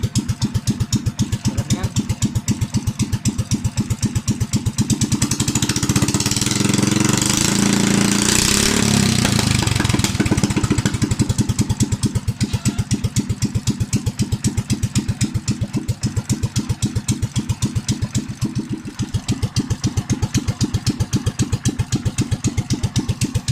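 Honda GX390 single-cylinder four-stroke engine running after its oil change and tune-up: idling with even firing pulses, revved up about six seconds in and settling back to idle by about twelve seconds.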